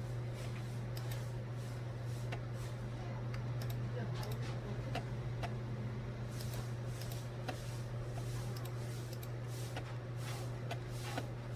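Scattered light clicks, some close together, over a steady low hum.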